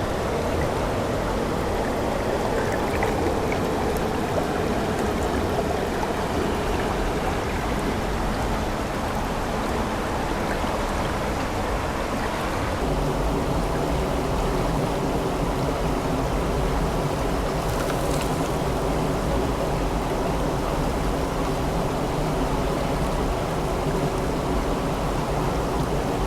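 Stream water flowing steadily. About thirteen seconds in, the sound of the water changes abruptly.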